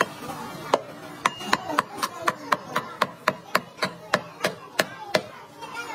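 A knife chopping rapidly on a cutting board: a steady run of about sixteen sharp strikes, roughly four a second, starting just under a second in and stopping about a second before the end.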